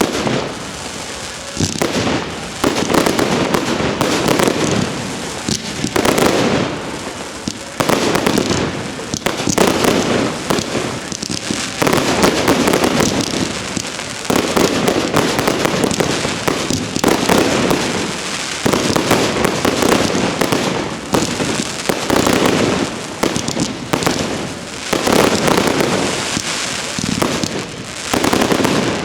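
Fireworks display: dense crackling and bangs of aerial shells, swelling in waves every two to three seconds.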